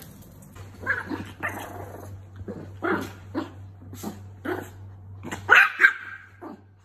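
A small dog barking in a run of about a dozen short barks. The two loudest barks come about five and a half to six seconds in.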